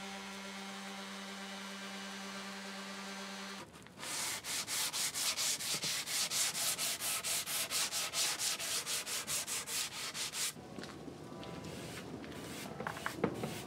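Random orbit sander running with a steady hum on the wood table top, cutting off a few seconds in. Then a sanding sponge is rubbed back and forth by hand along the veneered edge, about four or five quick strokes a second, stopping a little after ten seconds in.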